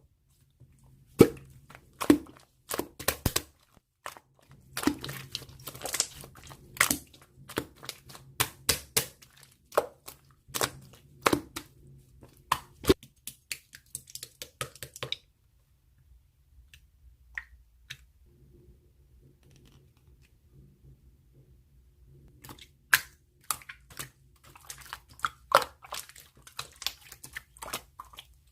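Irregular sharp clicks and taps with crinkling and rustling as small objects are handled close to the microphone, pausing from about 15 s to 22 s before resuming.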